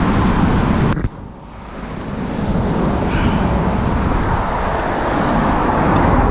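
Steady rumbling roar of road traffic. It drops out abruptly about a second in and fades back up over the next two seconds.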